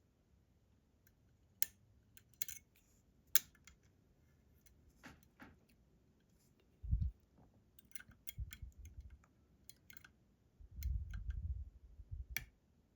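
Scattered small clicks and scrapes of lock picks working in a Robur 2391 dimple lock's pins and sidebar, with low thuds of the lock and tools being handled about seven seconds in and again near the end.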